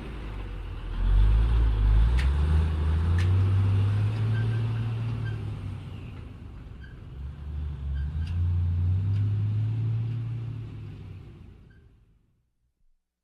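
Truck engine pulling away, rising in two surges with a dip between them, then dying away to silence near the end. Two sharp clicks about two and three seconds in.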